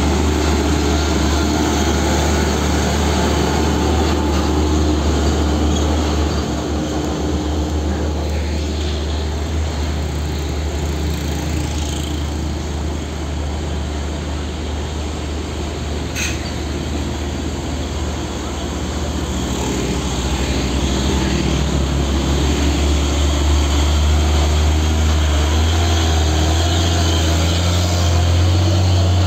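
Hino 500 tractor-trailer trucks hauling heavy loads uphill, their diesel engines running at low speed. The sound eases a little in the middle and swells again as a truck passes right by the microphone near the end.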